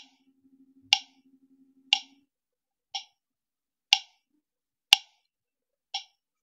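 Short, sharp click-beeps of an audio-video sync test video, once a second, about seven times, played through Xiaomi Mibro O1 open-ear earphones. This is the latency test signal, and it comes with no noticeable delay.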